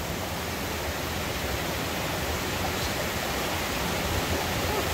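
Steady rush of a swollen river running heavy, an even roar of water with no distinct splashes.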